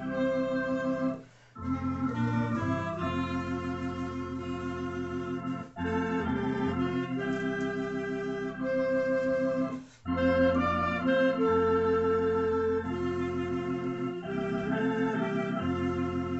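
Tokai T1 electronic organ and a clarinet playing a hymn together in a stately 9/8 time, with held chords and melody notes. The music drops out briefly three times, at the breaks between phrases.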